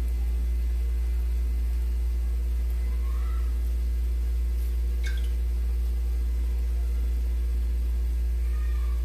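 Steady low hum with a few faint steady tones above it, and a single faint click about five seconds in.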